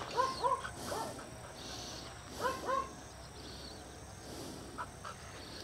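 A dog whining in short, high, rising yelps: a pair right at the start, a fainter one about a second in, and another pair about two and a half seconds in.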